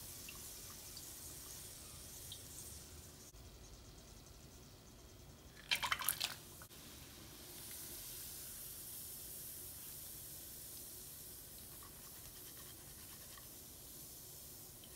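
Hot oil sizzling faintly and steadily as nuts deep-fry in a steel strainer basket set in the pan, with a brief loud crackle about six seconds in.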